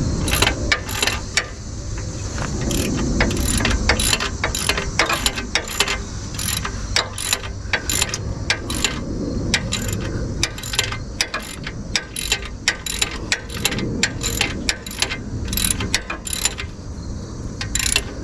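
Hand ratchet wrench clicking in repeated back-and-forth strokes as bolts are run in on the rear brake, a few sharp clicks a second with short pauses between runs.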